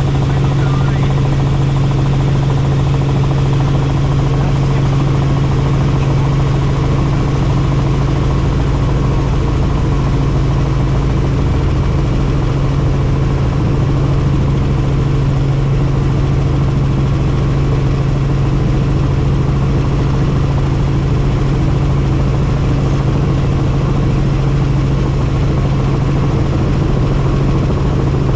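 Helicopter in flight: a steady drone of engine and rotor with a strong low hum, unchanging in pitch and level.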